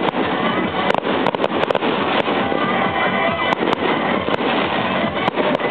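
Fireworks going off, a dozen or so irregular sharp cracks and pops over music playing.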